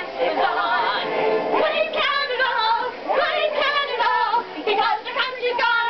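A musical show tune playing with young female voices singing along.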